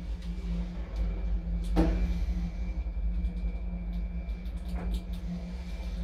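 1960s Del Bo P.Stam traction elevator running, with a steady low hum and rumble from the car and machinery. There is a single clunk about two seconds in and a fainter one near five seconds.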